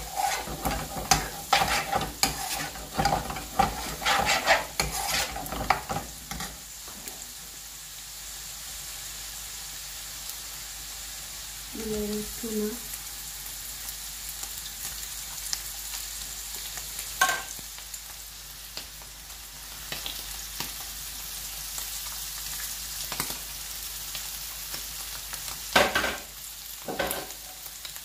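A metal spoon stirring and scraping onions frying in oil in a nonstick frying pan, with quick clicks and scrapes against the pan for the first six seconds and again near the end. In between, a steady sizzle of frying.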